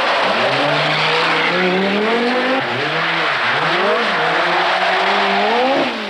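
Group B rally car engine revving hard, its pitch climbing and then dropping several times through gear changes and lifts, over a loud steady hiss.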